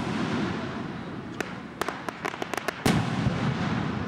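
Aerial fireworks shells bursting. A single crack comes, then a quick string of about eight sharp pops about two seconds in. A loud boom follows near the three-second mark and rumbles on as it fades.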